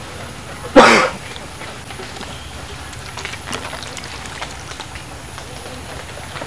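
A single loud splash of muddy water about a second in, from water being scooped out of a flooded hole with a plastic container. After it come faint sloshing and a few small knocks.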